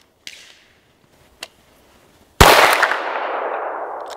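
A single 9×19 pistol shot from a Norinco copy of the Glock 17: one sudden loud crack with a long echo that fades over about two seconds. Two faint handling clicks come before it.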